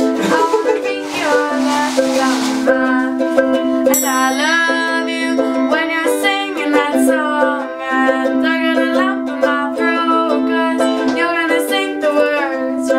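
Ukulele strummed in chords while a girl sings along. A triangle rings out with a bright metallic tone about four seconds in.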